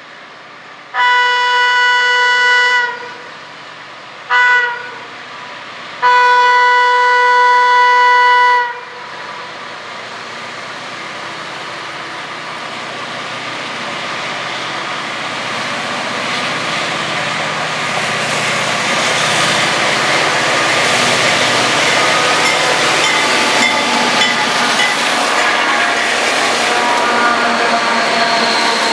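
Diesel freight locomotive horn blowing a single flat note, a long blast, a short one and another long one, a horn the uploader rates the worst. The train then draws near and rolls past working upgrade, its engines and wheels on the rails growing steadily louder.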